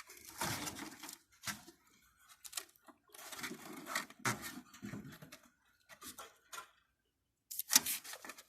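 Hands working on the parts of a Carrier Siesta window air conditioner: irregular scraping, rubbing and clicking of its plastic and metal pieces, with a sharp knock near the end.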